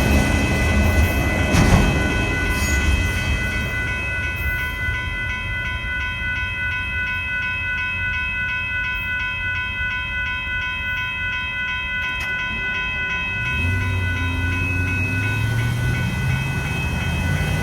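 A Union Pacific auto train's cars rolling past with a rumble and wheel clatter that eases after the first few seconds, while the crossing's warning bell rings in quick repeating dings and stops near the end. A road vehicle's engine revs up in the last few seconds.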